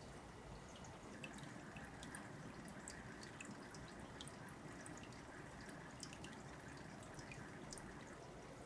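Faint water dripping and trickling into an aquarium, with light irregular drops over a steady low hiss.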